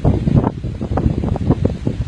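Wind buffeting the microphone in uneven gusts, a loud low rumble that surges and drops several times a second.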